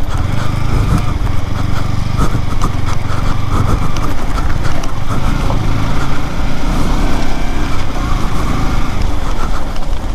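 Yamaha R15's single-cylinder engine running steadily while the motorcycle is ridden over a rough, sandy and stony track, with scattered clicks and knocks over the engine note.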